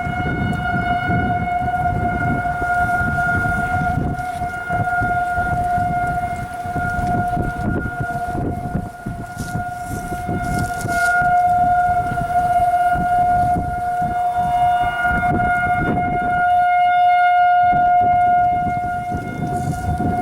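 Federal Signal 2001-series outdoor tornado warning sirens sounding a steady alert tone during a test, heard from a distance: one held pitch with its overtone, its loudness swelling and dipping slightly. A low rumbling noise runs underneath.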